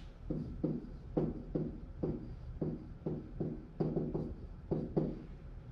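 Pen strokes tapping and knocking on the surface of an interactive whiteboard as handwriting is written on it: a quick, uneven run of short taps, about two or three a second.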